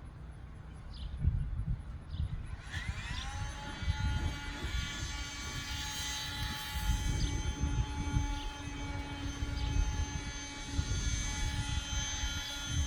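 Whelen WPS-2809 outdoor warning siren starting up about three seconds in: its tone rises briefly, then holds a steady pitch of about 435 Hz with many overtones, a steady alert tone.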